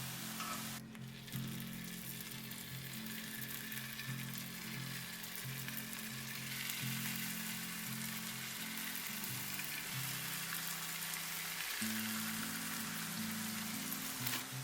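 Potato spirals sizzling as they fry in hot oil. The hiss breaks off briefly about a second in, then grows stronger.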